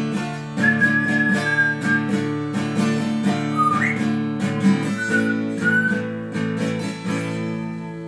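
Acoustic guitar strummed steadily, with a few short whistled notes over it: one held note, a quick upward slide, then two brief notes.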